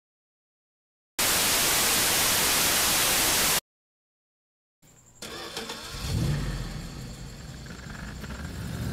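A loud, even burst of static hiss about a second in, starting and cutting off abruptly after about two and a half seconds. After a second of silence, a low rumbling noise with a faint high whine fades in and builds.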